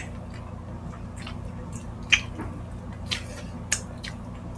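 Close-miked wet chewing and lip smacking of people eating stewed liver and rice by hand, with sharp smacks about two, three and three and a half seconds in.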